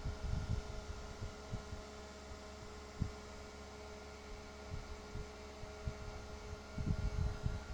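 Steady electrical hum with a few dull low thumps: a cluster at the start, one about three seconds in, and another cluster near the end.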